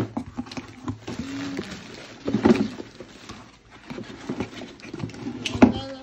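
Cardboard shipping box being rummaged: flaps and a shoebox rustling, scraping and knocking against the cardboard, with a couple of louder knocks about two and a half seconds in and near the end as the shoebox is lifted out.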